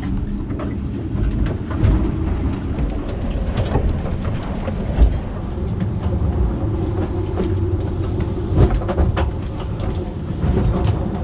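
Sailing yacht driving through heavy seas: a steady low rumble of water and wind against the hull, with scattered knocks and clatter. The sharpest knock comes about halfway through.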